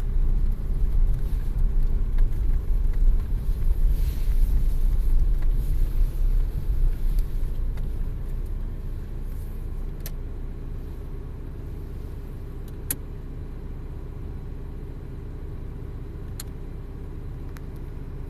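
Car heard from inside the cabin: a low rumble of engine and road noise while driving, which fades after about eight seconds to a quieter steady hum as the car slows and stops. A few sharp clicks come later on.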